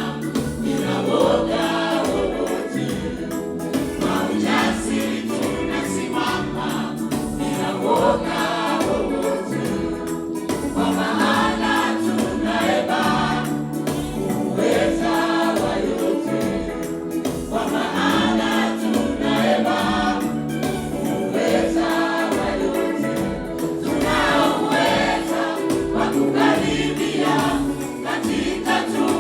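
Church choir singing a Swahili gospel song in harmony, many voices together over a steady low beat.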